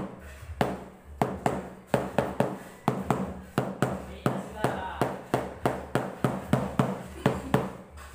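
Rubber mallet tapping a large porcelain floor tile again and again, about four quick knocks a second with a couple of short pauses, bedding the tile down level in its mortar.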